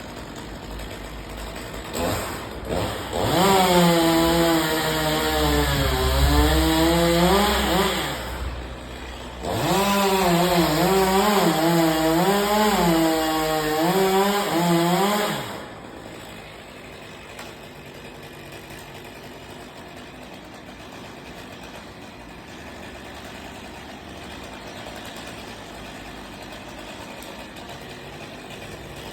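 Two-stroke chainsaw running at high revs in two long bursts, its pitch sagging and recovering again and again as the chain bites into the wood. After about fifteen seconds the saw stops, leaving only faint background sound.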